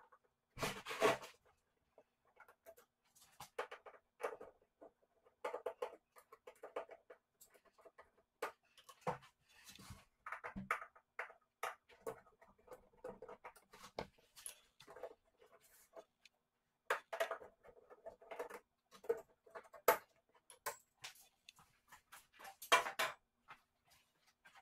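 Hands and a small screwdriver working at the edge of a bare LCD TV panel lying on foam packing: irregular scratching, rustling and light clicks, with louder bursts about a second in and again near the end.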